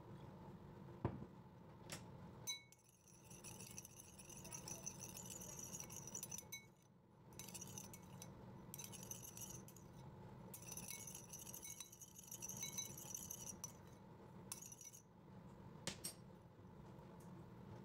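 A metal spoon stirring inside a small ceramic bowl, scraping and clinking against its sides with a high ringing, in runs of a few seconds broken by short pauses, as sugar is dissolved in vinegar. A few sharp single clinks come near the start and near the end.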